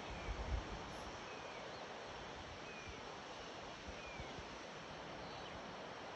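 Outdoor hillside ambience: a steady hiss of wind and leaves, with a bird repeating a short falling whistled note about every second and a half. A few low bumps of wind on the microphone come in the first second.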